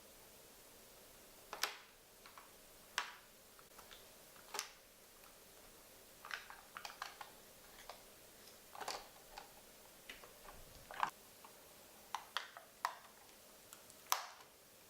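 Scattered light clicks and taps, irregularly spaced, from hands and a small screwdriver working on a laptop's screen assembly as its small mounting screws are removed.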